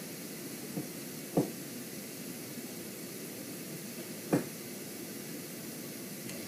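Steady hiss, broken by a faint knock just under a second in and two short thumps, about a second and a half in and again three seconds later.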